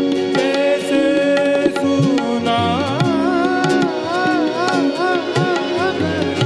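Live performance of an Indian song: a male voice sings a wavering, ornamented melodic run from about two and a half seconds in. Behind it, a harmonium holds steady chords and a tabla keeps time, its bass drum strokes gliding in pitch.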